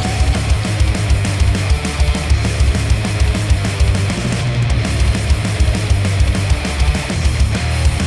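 Loud instrumental heavy rock music with distorted guitars and rapid bass-drum hits, played through a Sennheiser headphone and picked up by microphones at the earcup.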